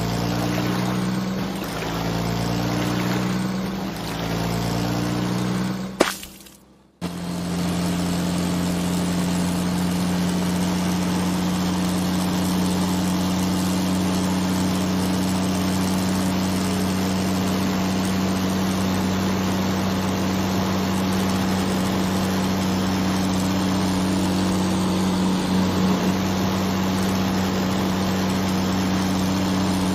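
Engine sound running as a steady, even drone, laid over footage of a toy truck, with a click and a short break about six seconds in. Before the break it swells and dips in a regular pattern.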